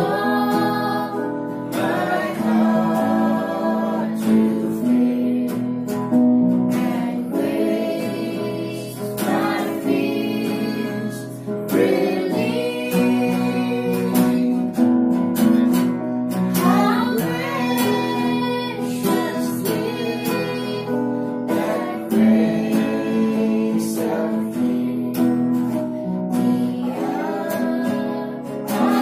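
A woman singing a worship song, accompanied by strummed acoustic guitar and an electronic keyboard.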